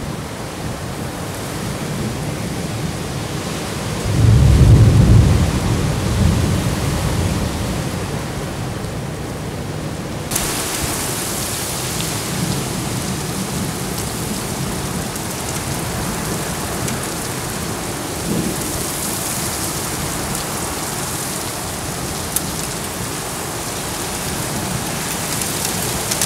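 Heavy rain falling steadily on pavement in a thunderstorm, with a low rumble of thunder about four seconds in that dies away over the next few seconds. About ten seconds in the rain suddenly sounds closer and hissier.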